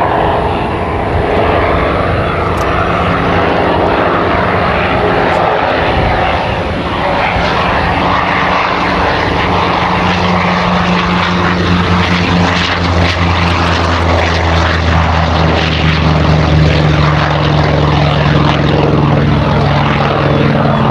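F4U Corsair's Pratt & Whitney R-2800 radial engine and propeller at takeoff power, a loud steady drone through the takeoff roll and lift-off. Its low hum grows stronger about halfway through.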